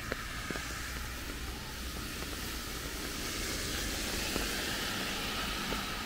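Rain falling steadily as a soft hiss, with a few light ticks and a low rumble underneath.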